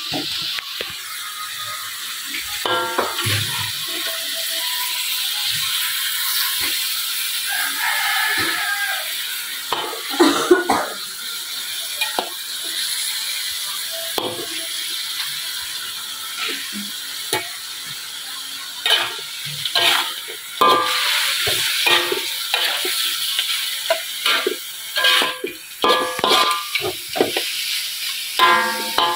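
Meat sizzling in a steel wok with a little water just added to soften it, while a metal spatula stirs and scrapes it, clattering against the wok; the clatters come thicker in the last ten seconds.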